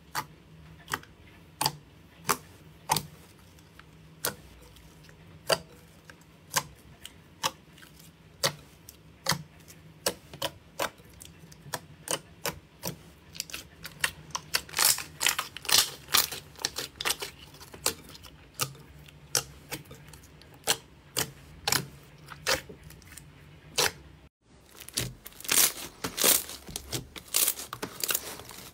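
Fingers pressing and poking soft pudding slime, making sharp wet clicks and pops, about one a second at first and then faster and louder. Near the end, after a brief gap, a thicker slime is stretched and folded, giving a dense run of louder crackling pops.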